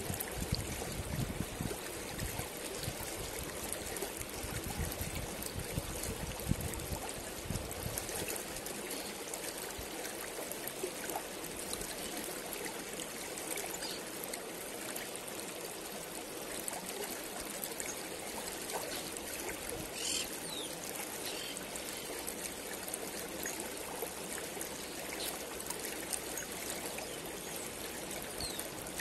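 Shallow river flowing over rocks, a steady rushing babble. A low rumble sits under it for about the first eight seconds and then drops away, and a few brief high chirps come about twenty seconds in.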